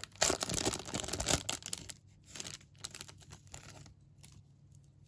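Trading card pack wrapper being torn open, crinkling densely for about two seconds, then a few faint rustles and clicks as the cards are handled.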